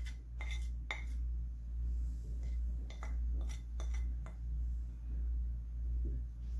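A plastic spoon scraping and tapping against a ceramic plate in a series of light clicks as chilli and turmeric powder is pushed off onto raw fish fillets, the clicks falling off after about four seconds. A steady low hum runs underneath.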